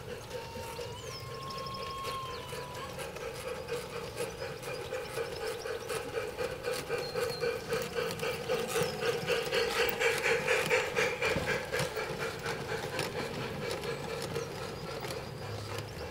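Garden-railway model trains running on track: a steady motor drone with fast clicking of the wheels over the rails, growing louder and pulsing as a train runs close by around the middle, then easing off.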